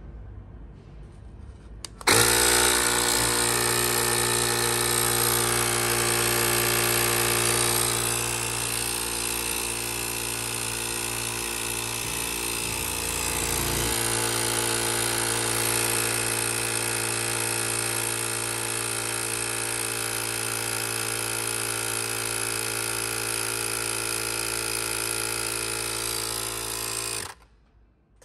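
CYCPLUS A5 portable electric air inflator pumping up a football through a needle adapter: its compressor starts abruptly about two seconds in, runs steadily with a strong pitched hum as the ball's pressure climbs past a third of a bar, and cuts off suddenly near the end.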